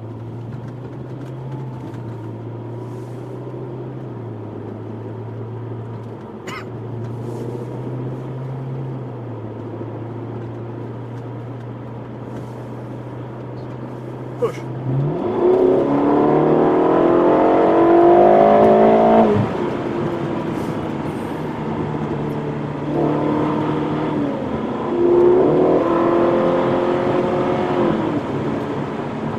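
Ferrari California T's twin-turbo V8 running at low revs for about fifteen seconds, with small steps in pitch. Then it revs up hard under acceleration, its note rising steeply for a few seconds until an upshift cuts it off. A second, shorter pull comes near the end.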